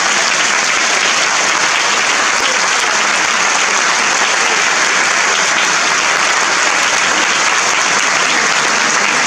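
Audience applauding, a dense and steady clapping.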